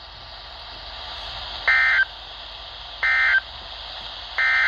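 NOAA Weather Radio SAME end-of-message code: three short data bursts a little over a second apart, closing the Required Weekly Test, over steady radio hiss.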